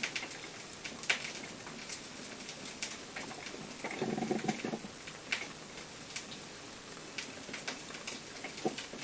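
Irregular crackling and popping from a frying pan heating up, with a low gurgling burble about four seconds in from a Krups XP1500 drip coffee maker brewing.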